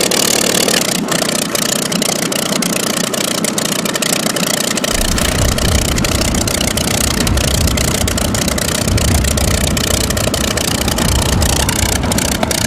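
Aircraft piston engine running steadily on an old film soundtrack, with much crackle. Its deep low rumble comes in about five seconds in.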